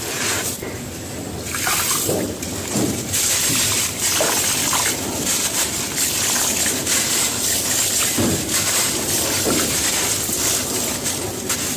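Gritty cement crumbling and falling into water, a continuous sloshing, trickling crackle.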